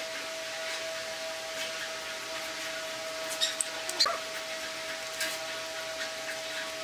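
A few light clicks and taps from small wooden pieces being handled and fitted together, with a brief rising squeak about four seconds in, over a steady background hum.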